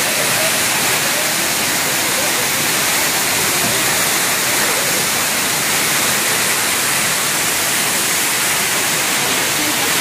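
Waterfall plunging down a rock face into its pool: a loud, steady rush of falling and crashing water.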